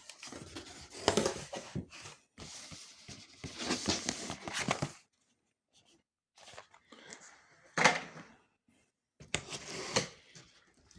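Cardboard mattress box being opened by hand: irregular rustling and scraping of cardboard and packaging in stops and starts, with a sharper knock about eight seconds in.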